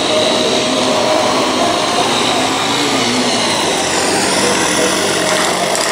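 Off-road military motorcycle engines running steadily as the bikes ride across a muddy course, a continuous engine drone whose pitch wavers slightly.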